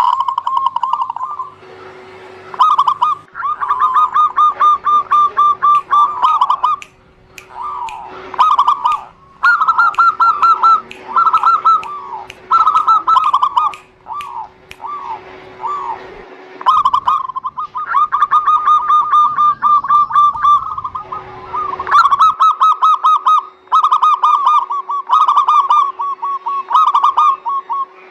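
Zebra doves (perkutut) cooing in long runs of rapid, trilled pulsed notes, phrase after phrase with brief pauses between. A faint steady hum runs underneath.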